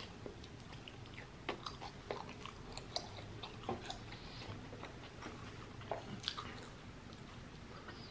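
A person chewing and biting into a cheesesteak sandwich, close to the microphone, with quiet irregular mouth clicks and smacks.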